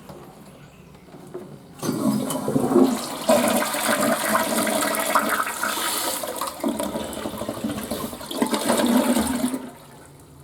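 Western-style flush toilet flushing: a loud rush of water starts about two seconds in, runs for about eight seconds and cuts off sharply near the end.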